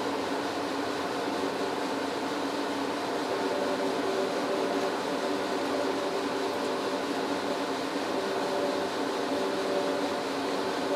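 Cab noise of an NS class 1700 electric locomotive running on the line: a steady rumble with a hum of several steady tones that grow stronger a few seconds in.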